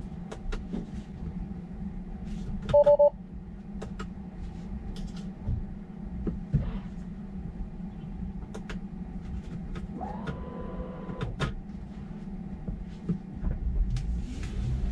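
A car horn gives two short beeps about three seconds in, a warning from a driver startled by a car backing toward it. Under it runs a steady low hum with scattered clicks, and near ten seconds in a higher tone rises and holds for about a second and a half.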